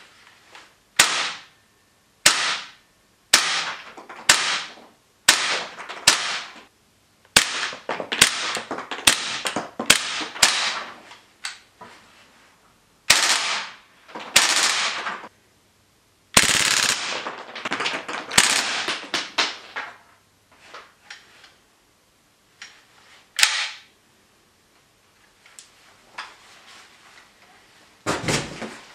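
WE SMG 8 (MP7-style) gas blowback airsoft submachine gun firing: sharp cracks with a short fading tail, mostly single shots at irregular intervals. About halfway through comes a longer rapid string. A dull thump comes near the end.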